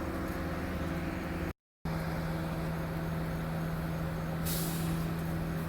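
Heavy diesel engine of the site equipment running steadily, with a short hiss of air about four and a half seconds in. The sound cuts out briefly about one and a half seconds in.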